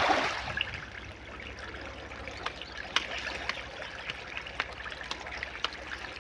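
A crowd of feeding fish splashing and slurping at the water surface: a continuous patter of small splashes with a louder splash right at the start.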